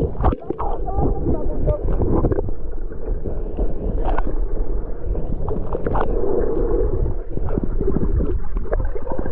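Swimmer's strokes and bubbles heard through a camera held underwater: a muffled, continuous rumbling and bubbling with scattered sharp clicks.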